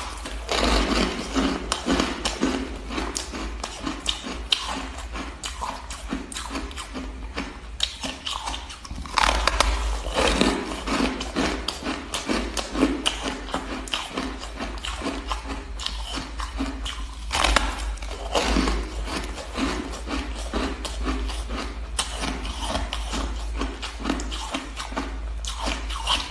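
Biting into and chewing blocks of coloured frozen ice: a dense, continuous run of crunches close to the mouth, with louder bites about nine and about seventeen seconds in.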